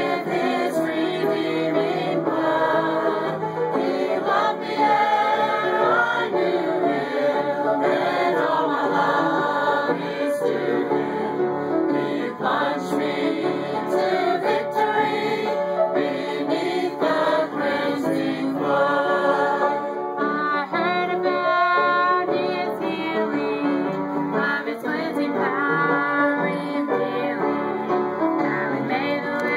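A mixed group of men's and women's voices singing a song together, with an upright piano playing along.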